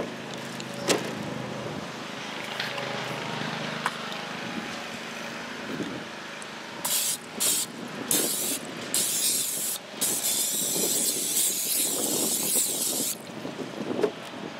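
Aerosol can of vegetable cooking oil spraying into an empty cast iron Dutch oven: several short hissing spurts, then one long spray of about three seconds. A couple of light knocks sound in the first second.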